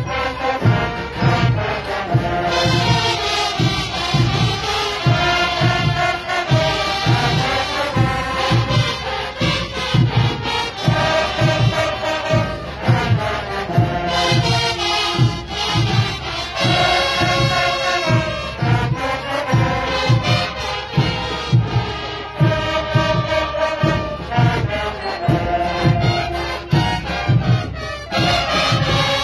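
A large school marching band playing: brass instruments carrying the melody in repeating phrases over a steady drum beat.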